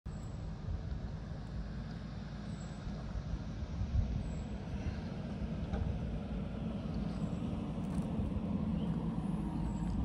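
JCB backhoe loader's diesel engine running steadily.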